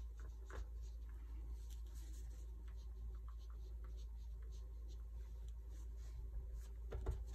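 Foam sponge dauber dabbing and rubbing ink onto a small die-cut cardstock petal on a craft mat: faint, soft, irregular scuffs and ticks. A slightly louder soft knock comes near the end.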